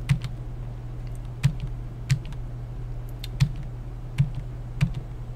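Keystrokes on a wireless computer keyboard as a terminal command is typed: separate clicks at uneven intervals, roughly one or two a second, over a steady low hum.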